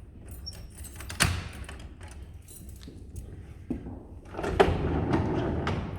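Clicks and knocks from the wooden doors and lock mechanism of a David Roentgen mechanical cylinder desk as it is worked with a key. Near the end comes a longer sliding, rattling movement that starts with a sharp knock.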